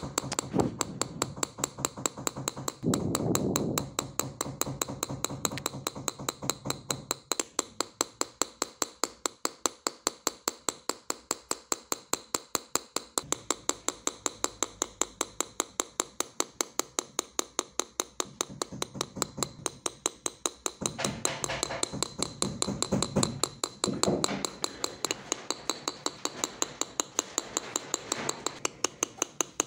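A steel engraving tool being tapped into a metal sheet to chase the lines of a design: an even run of sharp metallic ticks, about four a second.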